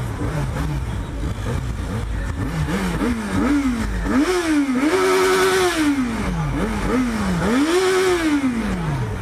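Yamaha XJ6's inline-four engine revved repeatedly while the bike stands still: a string of quick blips, then two longer revs that climb, hold briefly at the top and fall away, one near the middle and one near the end.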